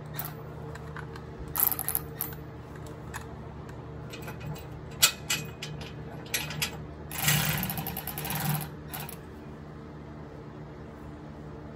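Cordless electric ratchet running in several short bursts, the longest about two-thirds of the way through, as it snugs down the bolt and nut of a frame-mounted camper tie-down bracket, over a steady low hum.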